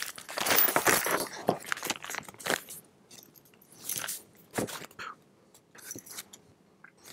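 Small plastic bag of screws crinkling as it is handled and opened, followed by scattered light clicks and rustles of small metal parts and paper being handled.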